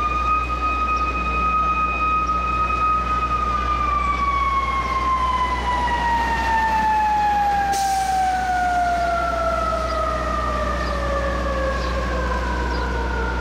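A fire truck's mechanical siren holds a high steady wail for a few seconds, then winds down slowly, its pitch falling steadily for about ten seconds, over a low steady rumble. A single short click comes about eight seconds in.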